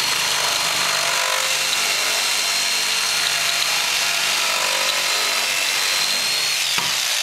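Electric jigsaw running steadily as its blade cuts through a kitchen countertop, a high motor whine over the rasp of the blade. Near the end the whine drops in pitch.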